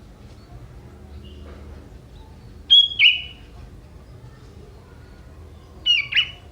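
Young wild sooty-headed bulbul calling: two short bursts of sharp calls about three seconds apart, each dropping quickly in pitch, with faint chirps between.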